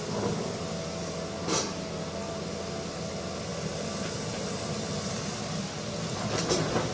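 Steady mechanical hum of a running engine or machine, with two short sharp hissing bursts, about a second and a half in and again near the end.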